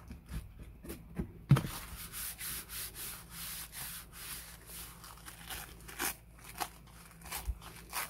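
Hands rubbing and smoothing freshly glued paper flat onto a folio cover: a run of short, hissing rub strokes. There is one sharp knock about a second and a half in.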